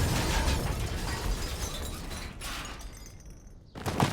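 Cartoon explosion sound effect: a blast with a deep rumble that dies away over about three seconds. A new burst of noise starts just before the end.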